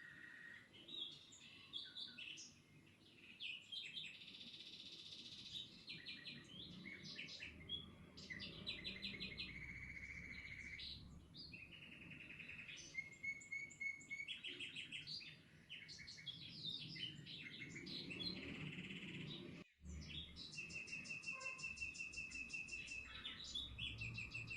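Several songbirds chirping and singing, with many short calls and rapid trills overlapping. In the last few seconds a steady, fast-pulsed high trill runs under them, and about twenty seconds in the sound cuts out for an instant.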